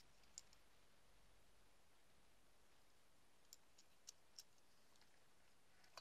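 Near silence with a few faint, short clicks from a metal flashlight being handled and turned in the hand.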